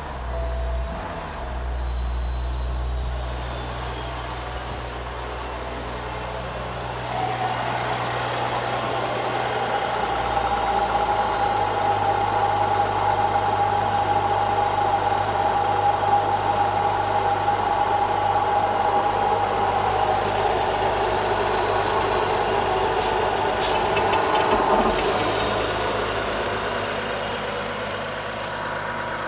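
BMW N55B30A 3.0-litre turbocharged inline-six petrol engine running steadily. For the first seven seconds it is a low hum heard from inside the car's cabin. After that it is heard with the bonnet open: louder and higher-pitched.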